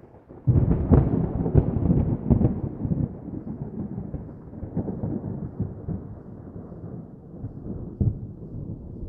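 Thunder sound effect: a sudden thunderclap about half a second in, crackling loudest for the next two seconds or so. It then rolls on as a rumble that slowly fades, with a smaller crack near the end.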